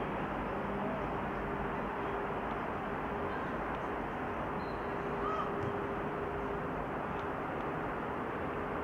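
Open-air ambience of a football ground: a steady rushing background noise with a faint steady hum and a few faint, distant calls.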